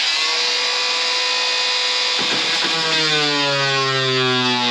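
Corded handheld power tool cutting through a plywood wall, running with a steady buzzing whine. About two seconds in the pitch drops and slowly sags as the blade bites into the wood.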